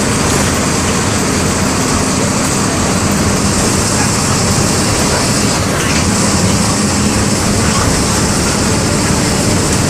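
MWM 6.12 TCE turbodiesel, a 225 hp inline six, running steadily as the bus is under way, with road and body noise.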